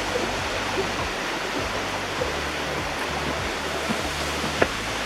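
Waterfall water crashing down, a steady rushing noise. A single sharp click about four and a half seconds in.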